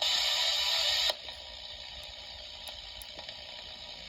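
Hiss of radio static from the small speaker of a Coby CX50 clock radio, cutting in for about a second and then dropping out suddenly: the sign of a dirty, intermittent power or band switch. A few faint clicks follow.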